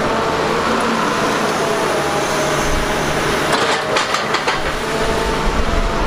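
Doosan DX380LC tracked excavator's diesel engine and hydraulics running steadily while its grapple handles armour rocks, with a few sharp knocks about three and a half to four and a half seconds in.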